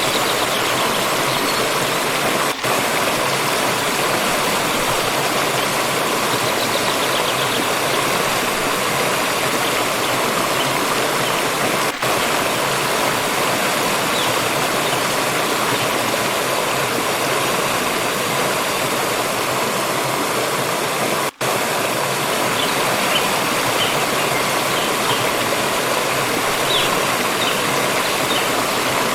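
Water stream rushing and splashing over rocks, a steady, even noise, with a brief dropout about two-thirds of the way through.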